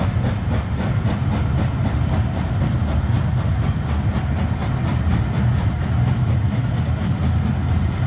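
Passenger coaches of a steam-hauled railtour train rolling past alongside the platform: a steady wheel-and-rail rumble with fast, regular clicking from the wheels on the track.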